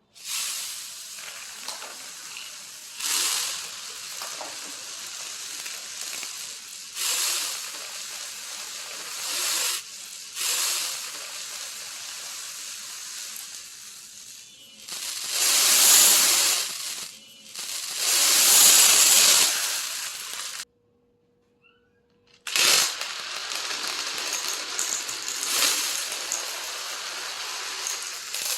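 Masses of small beads and marbles pouring and rattling against each other, a dense hissing rush that swells louder several times and breaks off for a couple of seconds past the middle.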